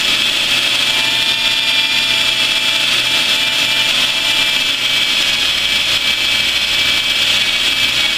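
Drill spinning a soft sanding pad with 500-grit paper against a welded steel cross-section: a steady, loud abrasive hiss over a constant motor whine, the final sand of the weld face.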